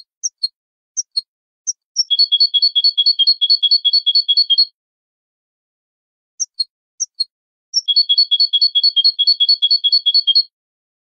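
European goldfinch (jilguero) singing in the Malagueño song style. A few separate high notes lead into a fast, even trill that alternates between two pitches. The whole phrase comes twice, with a pause of about two seconds between.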